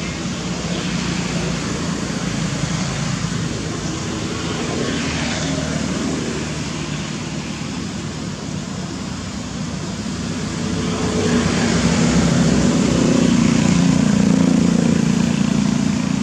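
Steady outdoor background rumble with a low hum, growing louder about eleven seconds in and easing off near the end.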